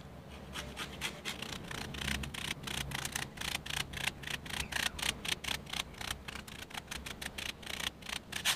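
Lemon peel rubbed against a flat metal hand grater to zest it, in rapid scraping strokes of about four or five a second.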